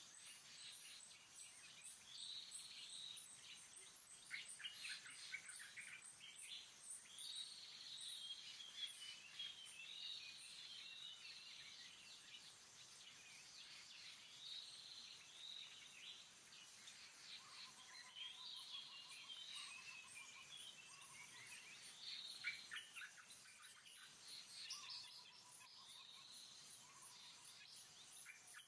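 Wild birds calling and chirping in repeated short phrases, with a couple of longer steady whistled notes in the second half, over a faint high pulsing buzz.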